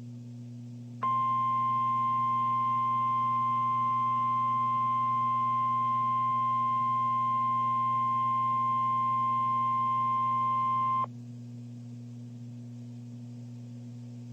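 NOAA Weather Radio warning alarm tone: a single steady tone of about 1050 Hz that starts abruptly about a second in, holds for about ten seconds and cuts off sharply. It signals that a warning message is about to be broadcast. A low steady hum runs underneath.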